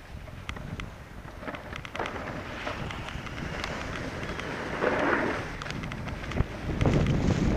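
Wind buffeting the microphone of a camera worn by a skier going down a groomed piste, over the hiss and scrape of skis on the snow with scattered small clicks. It grows louder in the last second or so.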